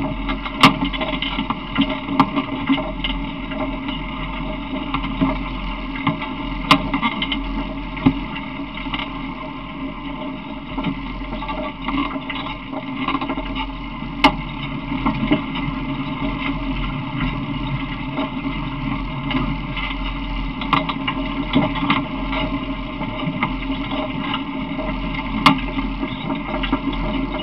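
Steady rumble and rattle of a small open vehicle rolling over rough pavement, with scattered sharp knocks.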